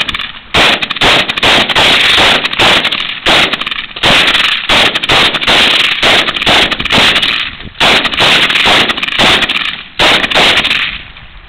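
AK-47-pattern rifle fired in quick strings of shots, several a second, with brief breaks, stopping near the end.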